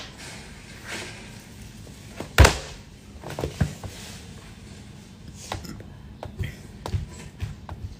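A sharp thump about two and a half seconds in, followed by several lighter knocks and clicks in a small room.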